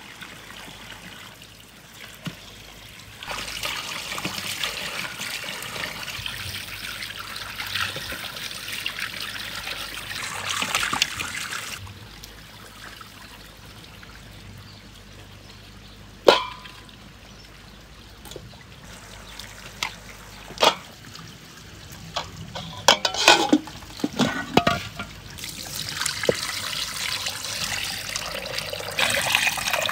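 Spring water running and splashing from a hollow-log spout, louder for long stretches as it pours into a vessel. A sharp metallic clink about halfway through and a run of clanks and knocks a few seconds later come from a steel cooking pot being handled. Near the end, water pours into the pot over raw chicken pieces being washed.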